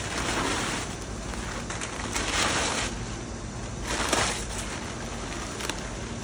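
Brown kraft packing paper rustling and crinkling as it is pulled out of a cardboard shipping box, in three bursts: near the start, at about two seconds and again at about four seconds. A steady low hum runs underneath.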